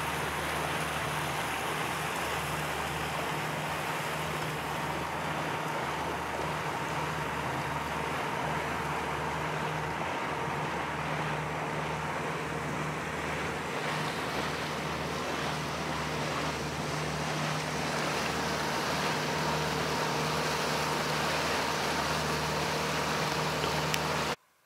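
Mercury 60 hp outboard motor running steadily at a constant speed on a small motorboat under way, with water rushing along the hull and wind noise. It cuts off suddenly near the end.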